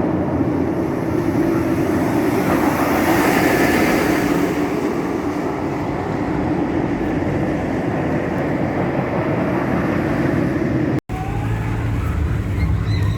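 Flying roller coaster train running along its steel track on a test run, a steady rumble that swells about three seconds in and then eases. Near the end the sound breaks off for an instant and a different low rumble follows.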